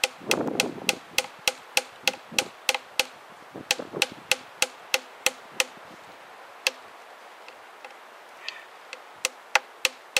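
A small wooden wedge is being tapped into a log with quick, sharp knocks, about three a second. The knocks stop about six seconds in, one lone knock follows, and the tapping starts again near the end.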